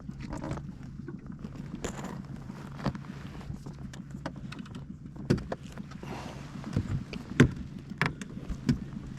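Knocks and thumps in a fishing boat, several sharp ones in the second half, over a steady low hum.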